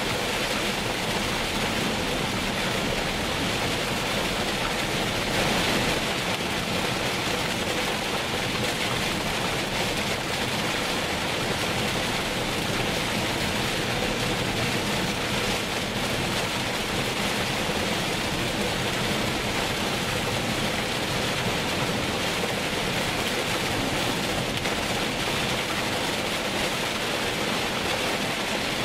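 Heavy rain on a moving car, heard from inside the cabin: a steady hiss of rain on the roof and windscreen mixed with tyres on the wet road.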